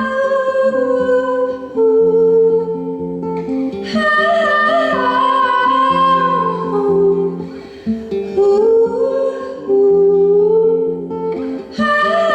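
Live acoustic song: a singer's sustained vocal line, in long held phrases, over picked acoustic guitar.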